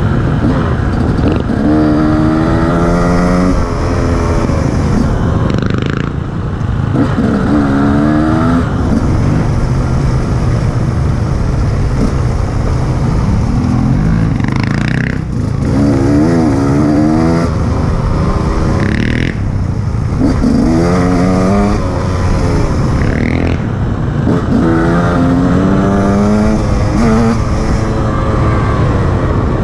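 KTM EXC 150 two-stroke enduro motorcycle being ridden off-road, its engine rising in pitch through the revs and dropping back about five times over a steady noisy bed.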